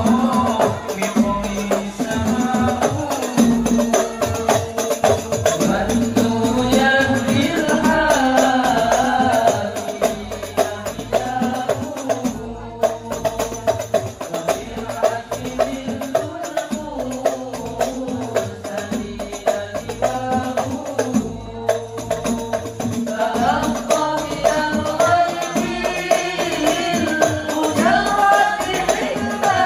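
Al Banjari sholawat ensemble: male voices singing a devotional song into microphones over a steady beat of hand-struck frame drums (terbang) and a bass drum.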